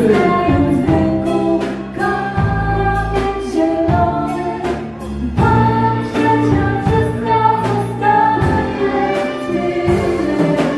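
Live dance band playing a song, a woman singing lead over a steady drum beat and the rest of the band.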